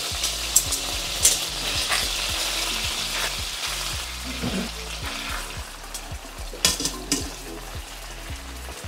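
Marinated beef chunks sizzling as they sear in hot avocado oil in a stainless steel skillet, browning the meat to form a crust. A few sharp clicks of metal tongs come as pieces are added and turned, and the sizzle eases a little toward the end.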